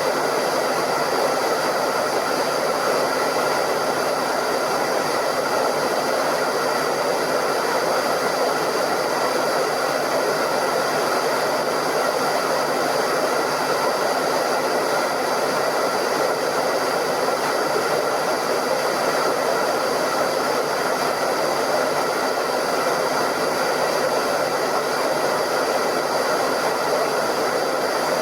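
Hairdryer running steadily, its fan blowing with an even rush of air and a faint constant whine over it.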